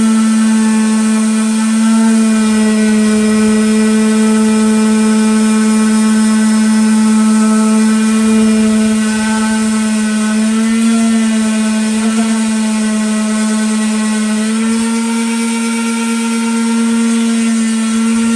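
Electric power sander running steadily on a wood round with a constant motor hum, its pitch wavering briefly around the middle and shifting again about fifteen seconds in as the load on it changes.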